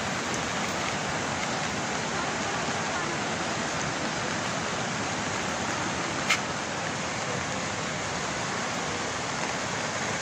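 Steady rushing noise of water, from rain and floodwater, with a single sharp click about six seconds in.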